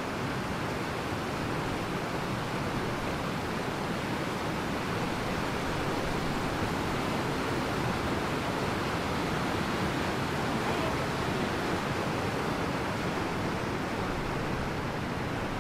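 Whitewater rapids and a small waterfall on a forest stream rushing steadily, a continuous noise that grows a little louder partway through.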